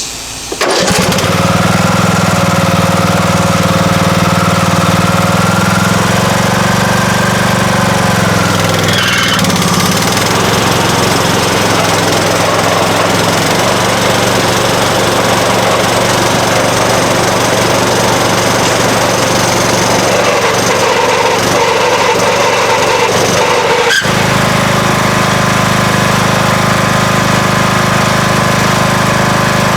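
Lawn mower engine starting and running at a steady speed, test-run right after a repair. About nine seconds in its steady note turns rougher and noisier; later there is a brief break with a click, after which the steady note returns.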